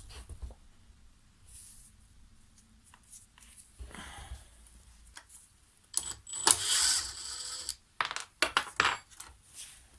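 Small metal parts and hand tools clinking and rattling while the blade bolts and spacers of a hedge trimmer are taken out. It is quiet handling at first, then from about six seconds in there is a run of sharp metallic clicks with a brief rattling burst.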